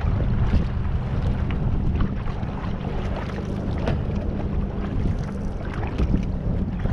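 Wind rumbling on the camera microphone, with water lapping and the splash of canoe paddle strokes.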